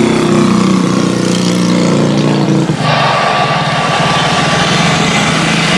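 CFM56 jet engines of a Boeing 737-900ER spooling up for takeoff, heard as a loud steady jet roar with a low hum. About three seconds in, the sound brightens into a louder hiss with a higher whine as thrust comes up.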